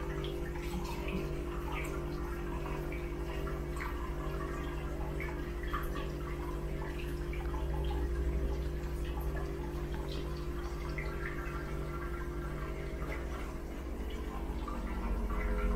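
Hot spring water pouring from a wooden spout into a ceramic tub: a steady splashing trickle with scattered drips, over a low steady hum.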